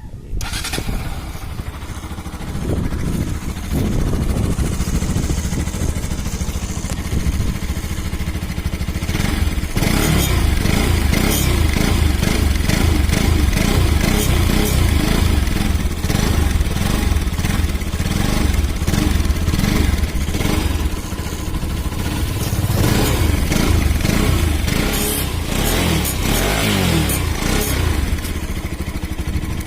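Bajaj Pulsar RS 200 single-cylinder engine starting up and running through its exhaust, getting louder about four seconds in and louder again about ten seconds in, then rising and falling with the throttle.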